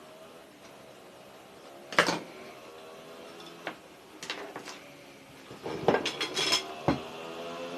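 Metal tools and parts clinking and knocking on a workbench: one sharp clink about two seconds in, a few lighter ones, then a quick cluster of clinks near the end.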